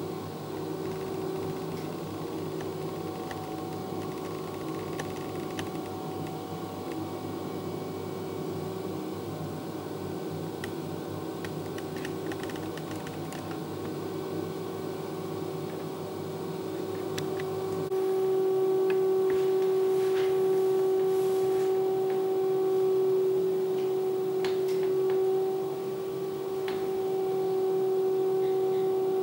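Steady machine hum with a held tone in a small tiled room, which gets louder about 18 seconds in, with a few faint clicks.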